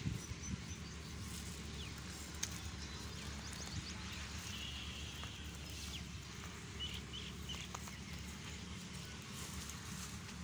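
Rural outdoor ambience: short bird chirps here and there over a steady low background noise, with a few soft clicks and rustles.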